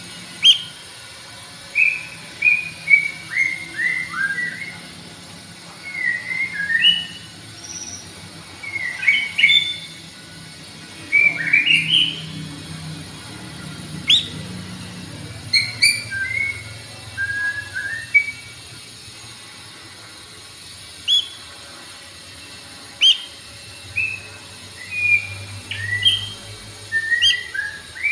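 White-rumped shama singing: quick phrases of short whistled notes that slide up and down in pitch, with brief pauses between phrases and a longer pause about two-thirds of the way through.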